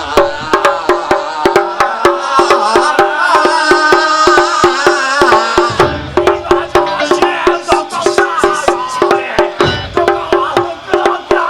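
Live Japanese taiko band music: fast, sharp drum strikes at about four a second over a repeating pulsed note, with a wavering melody line above.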